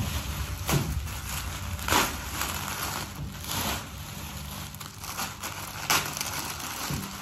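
Clear plastic garment bag crinkling and rustling as it is handled, in irregular bursts, the loudest about two seconds in and about six seconds in.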